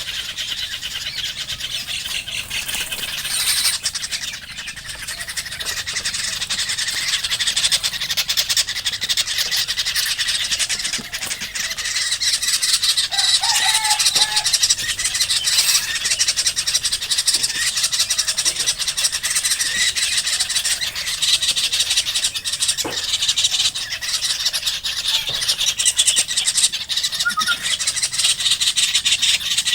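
Birds calling outdoors: a dense, continuous high-pitched chatter, with one short, lower call about 13 seconds in.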